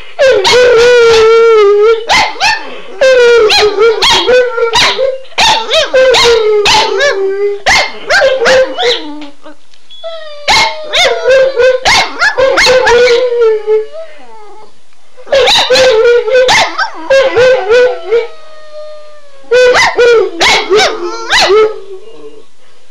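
A Boston Terrier howling: long, wavering howls in runs of a few seconds, broken by a few short pauses.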